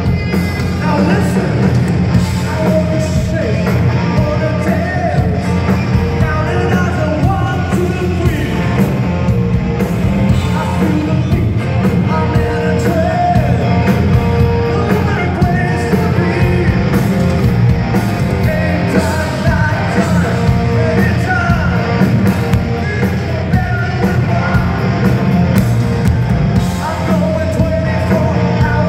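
Live hard rock band playing loud through a PA: electric guitars, bass guitar and drums, with a male lead singer singing.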